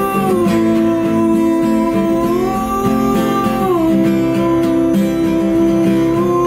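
A man singing long, held notes over a strummed acoustic guitar; the sung pitch rises about two seconds in and drops back near four seconds.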